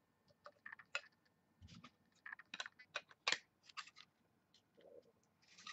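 Quiet, irregular clicks and scrapes of trading cards being flipped through by hand, with light plastic clicks as a card is handled in a clear plastic card holder.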